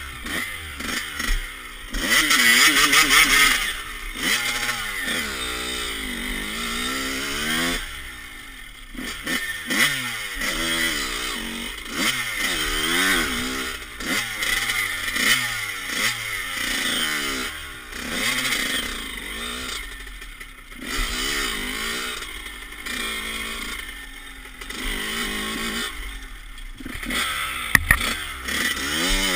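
Honda CR125 two-stroke motocross bike being ridden, its engine revving up and falling back many times as the throttle opens and closes.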